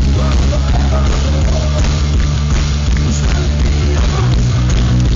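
Rock band playing live over a PA, loud and steady with electric guitars and a heavy bass line, heard from the audience.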